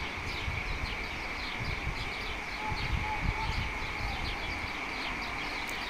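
Small birds chirping in quick repeated notes, several a second, over a low rumble of street traffic.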